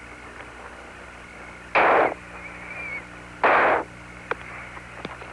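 Two short bursts of radio static, about a second and a half apart, on the Apollo 17 air-to-ground voice loop, over a steady low hum. A few faint clicks follow near the end.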